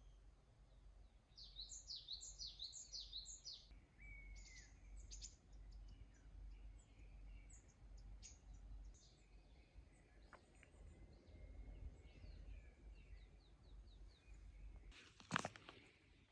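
Small songbirds calling faintly: a quick run of about six high chirps early on, then scattered single calls and a short rapid trill. A single sharp crunch sounds near the end.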